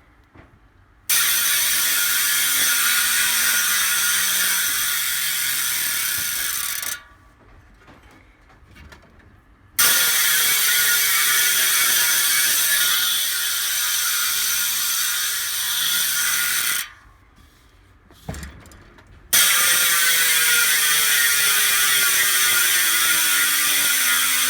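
Profile Racing Elite MTB rear hub freewheeling: the freehub pawls give a loud, rapid ratcheting buzz as the wheel is spun and coasts. It happens three times, each run starting suddenly and falling in pitch as the wheel slows.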